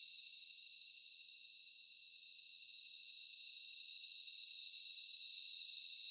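Steady high-pitched chirring of a cricket chorus, unbroken, swelling slightly louder after a few seconds.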